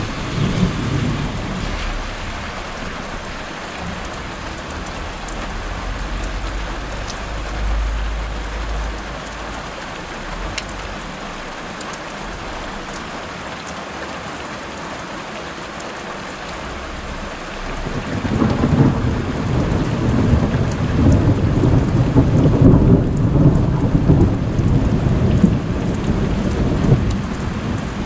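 Steady rain falling throughout, with a low rumble of thunder about six to nine seconds in. About eighteen seconds in a loud peal of thunder from the storm directly overhead breaks out and rumbles on for about ten seconds.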